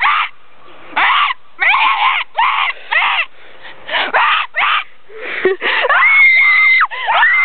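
A person imitating velociraptor calls: a rapid string of about a dozen short squawking shrieks that bend in pitch, then a long high screech held for about a second near the end, with another beginning just after.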